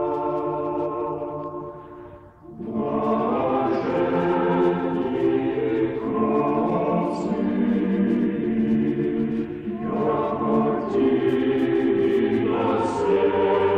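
Choir singing slow, held chords in sacred chant style, with a short break about two seconds in and a new chord near ten seconds.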